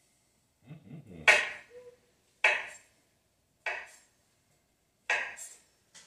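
Kitchen knife chopping down onto a cutting board: four separate sharp knocks, roughly one every second and a bit, each dying away quickly.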